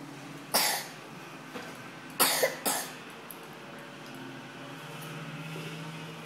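Three short, sharp bursts of noise from the mouth of a child eating noodles, about half a second in and twice more just after two seconds in.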